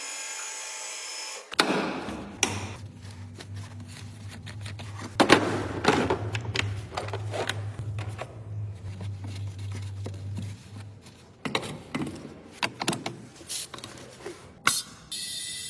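Tools clicking and knocking against metal in irregular sharp strikes, with a low steady hum for several seconds in the middle.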